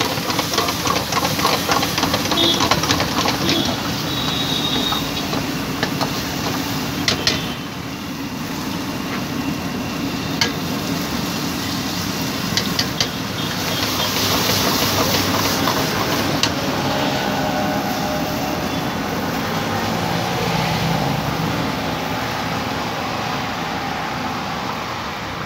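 Steady noise of a high-flame gas burner under a wok, with food sizzling in the pan and a few sharp clinks of a steel ladle against it.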